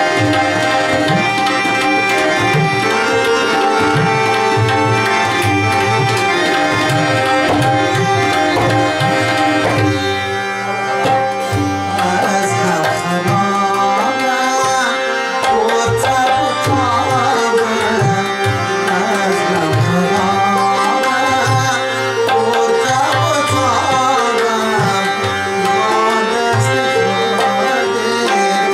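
Tabla playing a quick, busy rhythm under sustained harmonium notes; about ten seconds in the music thins briefly, and a man's singing voice carries the melody from then on.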